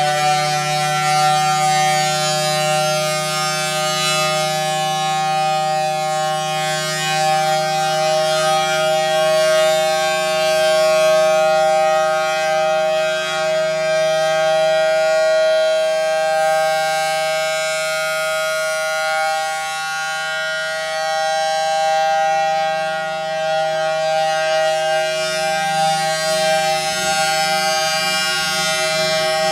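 Federal Signal Thunderbolt 1000T tornado siren sounding its steady alert: two tones at once in a chord, holding a steady pitch. Its blower runs backwards, sucking air rather than blowing, which keeps it from being as loud as it could be.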